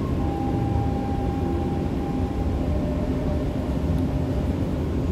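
Alstom metro train braking into an underground station, heard from inside the carriage: a steady low rumble under an electric motor whine that steps down in pitch as the train slows.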